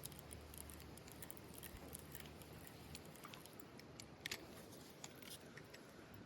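Near silence with faint, irregular small clicks and ticks over a quiet background; a low rumble stops about halfway through.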